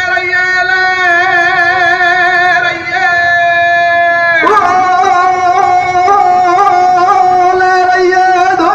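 A singer's voice through loudspeakers, holding long, slightly wavering notes, moving to a new note about four and a half seconds in.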